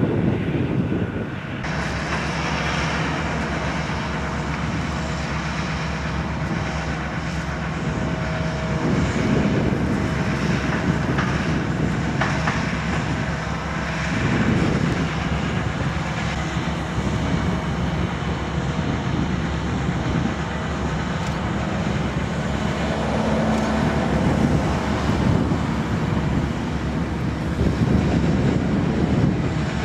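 Airbus A350-900's Rolls-Royce Trent XWB jet engines running at low power: a steady jet-engine noise that swells gently now and then. The sound changes abruptly about a second and a half in.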